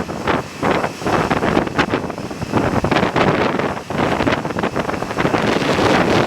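Strong, gusty wind buffeting the microphone in a loud, continuous rumble with rapid irregular blasts.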